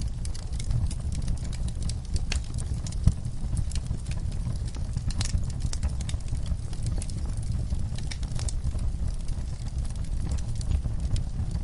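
Fireplace wood fire crackling: a steady low rumble of flame with irregular sharp pops and snaps, one louder pop about three seconds in.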